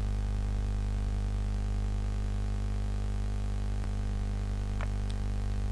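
Steady electrical mains hum, with a few faint clicks in the second half.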